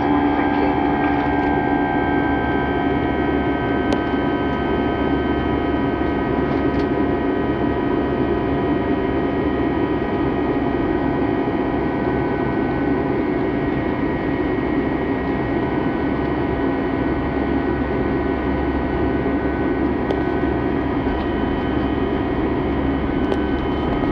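Airbus A320 in flight, heard from inside the cabin: a steady drone of engine and airflow noise with several steady whining tones held throughout, and a few faint clicks.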